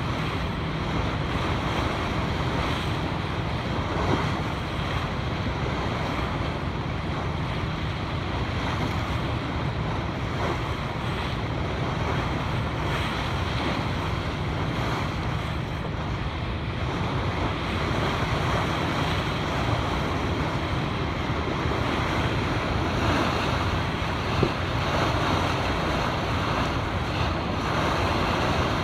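Sea water rushing and surf breaking against a rocky shore, heard from a boat, with wind blowing on the microphone. A steady low hum runs underneath.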